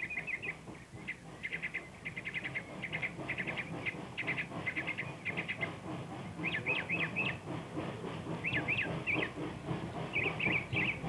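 Small birds chirping in quick repeated trills over the steady low working sound of a narrow-gauge Baldwin ten-wheeler steam locomotive climbing a steep grade.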